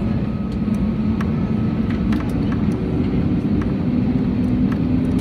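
Airbus A320neo turbofan engines heard from the cabin over the wing: a steady roar with a hum that rises slightly in pitch about three seconds in. A few faint clicks sound over it.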